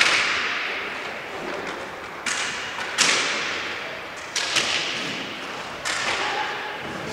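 Inline hockey sticks and puck cracking against the rink floor and boards: about six sharp hits, each ringing on and dying away over about a second in a large echoing hall, the loudest about three seconds in.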